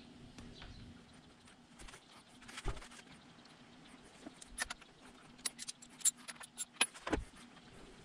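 Scattered small metallic clicks and clinks, with a couple of dull knocks, from hands refitting the spark plugs and plug leads on a 1978 Johnson 9.9 outboard's two-cylinder powerhead. The clicks come thicker in the second half.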